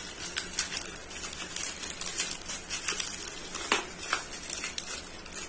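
Clear plastic wrap on a small boxed screwdriver set being handled and peeled open by hand: a run of light crinkling and crackling, with one sharper click about three and a half seconds in.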